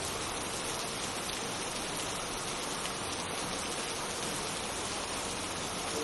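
Steady rain ambience: an even, unbroken hiss with no horn sounding.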